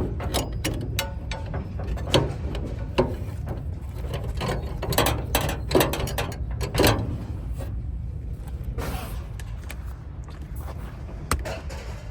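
Irregular metallic clicks and knocks of van door lock hardware being handled and forced into place, with a steady low hum underneath.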